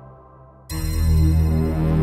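Yamaha Montage-family synthesizer playing preset patches: a sustained chord fades away, then about 0.7 s in a loud new patch comes in with deep bass under held chords.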